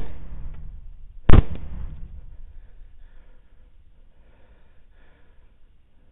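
Two rifle shots about a second and a half apart, the first right at the start, each trailing off in a rolling echo.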